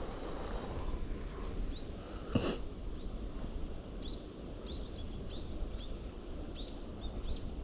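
A small bird chirping, short high calls about twice a second starting about halfway in, over a steady low background rumble. A single sudden knock or handling bump a couple of seconds in.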